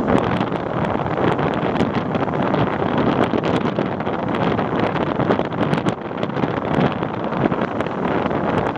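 Steady rushing noise with gusty wind on the microphone, rising and falling irregularly, with scattered faint ticks.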